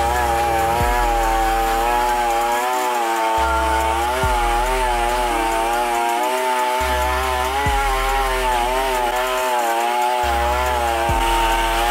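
Two-stroke chainsaw engine running fast, its pitch wavering up and down as it drives a brush roller scrubbing across a wooden board.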